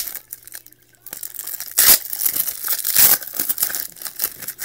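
A trading card pack's wrapper being torn open and crumpled. A sharp crackle at the start, then about a second in a dense stretch of crinkling and tearing, loudest twice.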